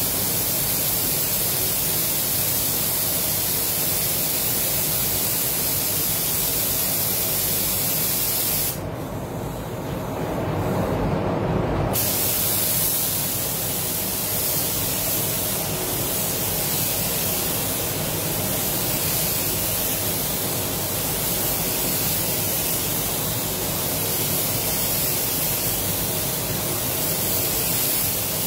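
Iwata Supernova LS400 gravity-feed paint spray gun spraying base coat at 1.8 bar with the fan and fluid fully open: a steady hiss of air and atomised paint. The hiss stops for about three seconds about a third of the way in, leaving a lower rush of air, then resumes.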